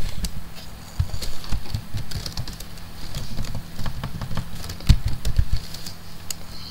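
Computer keyboard typing: irregular, scattered keystrokes with short pauses between them, over a steady low hum.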